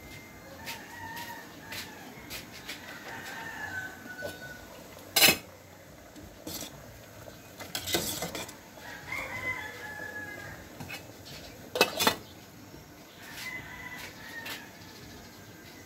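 Chickens calling, with a rooster crowing, in three spells of wavering calls. Loud sharp clinks of a metal ladle against a cooking pot come about five seconds in, around eight seconds, and twice close together near twelve seconds.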